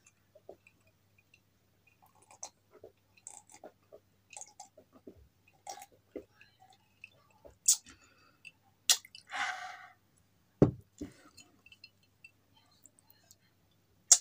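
Close-miked drinking and mouth sounds: swallows and small wet clicks and smacks, with a brief breathy rush a little after nine seconds. A low knock comes between ten and eleven seconds, and a sharp click comes right at the end.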